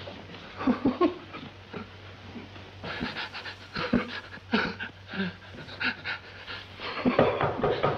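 An elderly man panting and gasping for breath in short, ragged, irregular breaths, played back from an old film's soundtrack.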